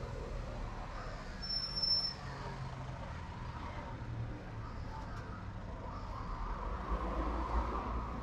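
Road traffic: a vehicle engine running low and steady, with a brief thin high-pitched squeal about one and a half seconds in, and the traffic growing louder near the end.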